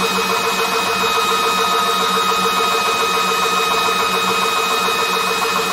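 PortAir PA1500S portable high-pressure PCP air compressor running steadily under load while filling a 700cc air bottle: an even mechanical whir with several constant tones over a hiss.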